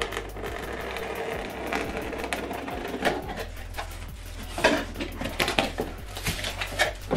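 Packing tape on a cardboard box being slit with a blade, a continuous scratchy rasp, followed from about three seconds in by a series of sharp knocks and scrapes as the cardboard flaps are handled and pulled open.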